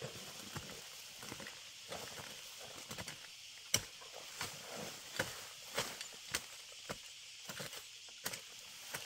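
Hand hoe chopping and scraping into soil and roots in irregular strikes, the sharpest a little under four seconds in, over a steady high hiss.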